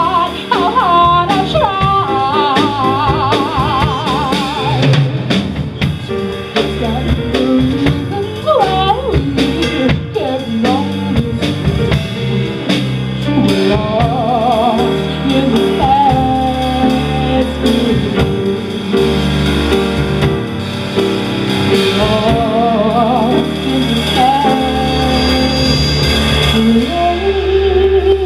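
Live female vocalist singing a melody with wide vibrato, backed by a small band of piano and drum kit with cymbals and rimshots.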